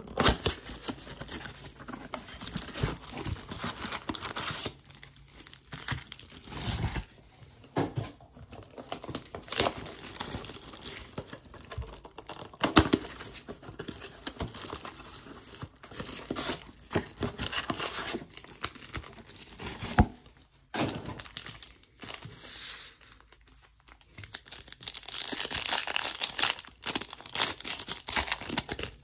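Cellophane wrapper crinkling and a cardboard trading-card blaster box being torn open, with scattered sharp crackles and snaps. Near the end comes a longer stretch of ripping as a foil card pack is torn open.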